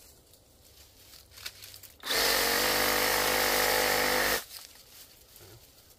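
Cordless brushless compact reciprocating saw with a 9-inch pruning blade running at a steady speed in one burst of about two seconds, cutting through small brush near the ground. It starts about two seconds in and stops abruptly, with faint rustling in the brush before and after.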